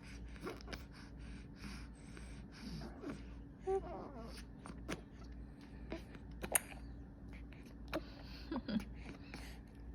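Baby suckling milk, with short moaning grunts, quick breaths through the nose and a few sharp sucking clicks.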